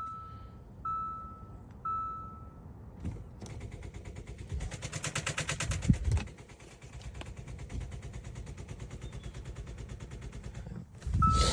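Car with a dead battery being started from a portable jump starter. A single beep sounds about once a second, three times, then a rapid, even clicking of many strokes a second runs for several seconds, loudest around the middle. A louder burst comes near the end.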